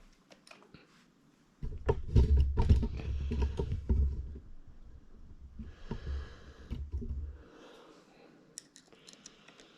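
Plastic parts of a Bissell ProHeat carpet cleaner being handled during reassembly: a run of clicks and knocks with a low rumble, starting about a second and a half in and dying away after about seven seconds.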